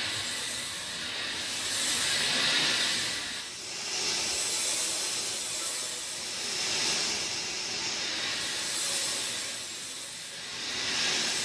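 Steady rain hiss that swells and eases about every two seconds.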